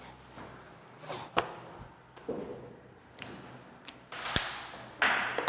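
Handling and movement noise: a few sharp knocks and clicks with soft rustling, then a louder hissing rustle near the end.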